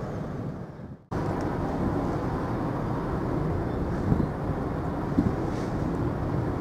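Wind buffeting the microphone: a steady low rumble with small gusty swells. The sound drops out briefly about a second in and cuts back in abruptly.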